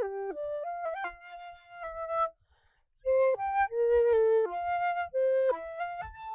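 Solo flute-type wind instrument playing a melody of short held notes that step up and down, with a brief pause, like a breath, about two and a half seconds in.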